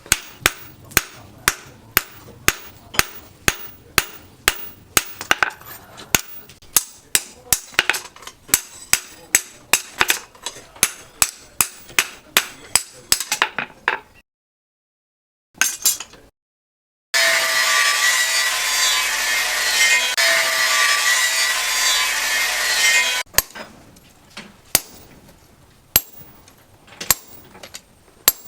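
Hammer blows on leaf-spring steel, about two a second with a ringing clink, for roughly the first half. After a sudden break a power tool grinds the metal steadily for about six seconds and stops abruptly, then slower, spaced hammer blows resume.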